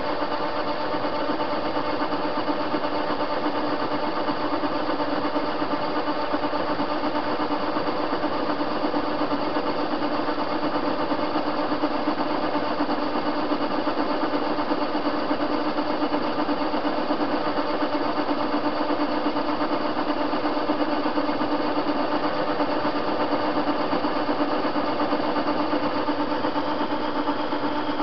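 TV-16 metal lathe running at a steady speed, its chuck spinning a metal bar. A steady mechanical hum with several held tones.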